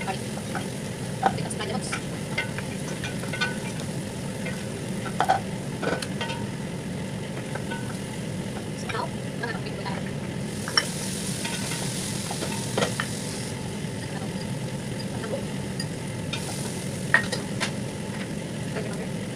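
Chopped onions frying and sizzling in a pot while a wooden spoon stirs them, knocking now and then against the pot. The sizzle turns brighter and hissier about ten seconds in, as grated ginger and garlic go into the hot pot, and again near the end.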